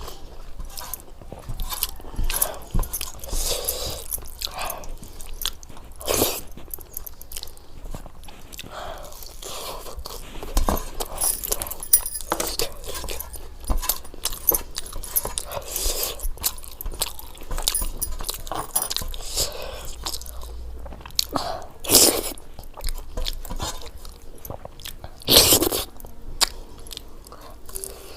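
Close-up eating sounds: a person chewing and biting into crunchy food, with frequent sharp crunches. The loudest crunches come once early on and twice near the end.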